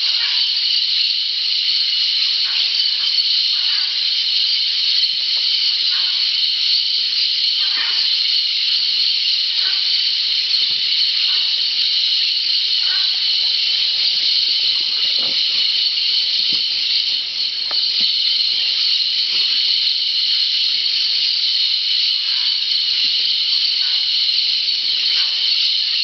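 A large flock of blue-headed parrots calling at a clay lick: a dense, steady, high-pitched chorus of screeching with many short separate calls breaking out above it.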